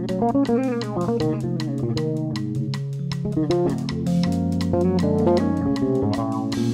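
Jazz trio playing an instrumental piece: electric bass guitar holding low notes, piano playing quick runs of notes, and a drum kit keeping a steady pulse on the cymbals.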